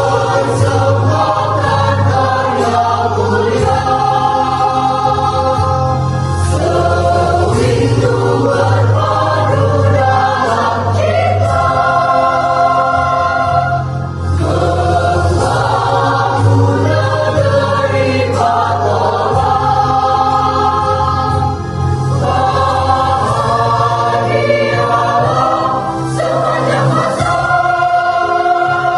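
Choir singing in several voice parts, holding chords that change every second or two, over a steady low bass line.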